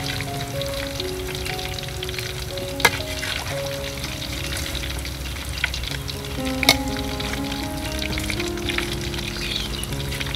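Small whole freshwater fish frying in hot oil in a wok, sizzling steadily, while a metal ladle stirs them and clinks against the wok twice. Background music plays underneath.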